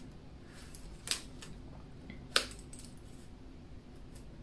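Small handling sounds of a plastic stencil sheet and pen on a planner page: a soft tap about a second in and a sharp click a little after two seconds.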